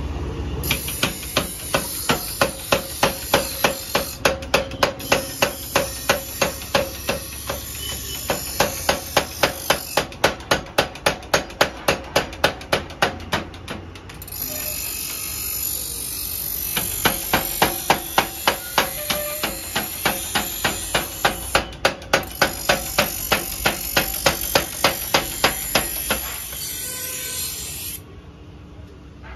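A 45 kg mechanical power hammer hammering a red-hot cultivator shovel, with rapid even blows at about four a second. The blows come in two long runs, with a few seconds in the middle where the machine runs without striking. The hammering stops shortly before the end.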